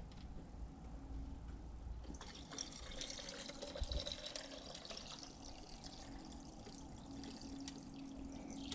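Two-stroke fuel mix (40:1) being poured from a jug into a chainsaw's fuel tank. The trickle and splash of liquid filling the tank begins about two seconds in and keeps going.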